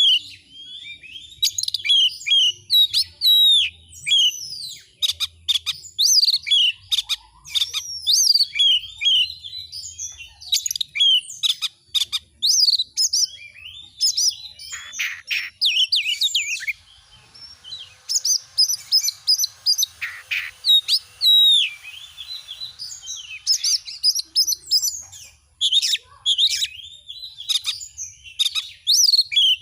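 Oriental magpie-robin (kacer) in full song: a fast, varied string of clear whistles and chirps that sweep up and down in pitch. There is a thinner lull of a few seconds about halfway through.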